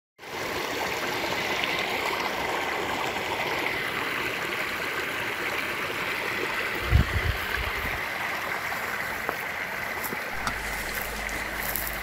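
Small waterfall and stream rushing steadily over rocks into a pool. A brief low thump comes about seven seconds in.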